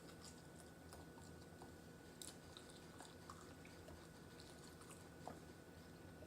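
Near silence with faint chewing of spicy instant noodles: a few soft, scattered mouth clicks over a low steady room hum.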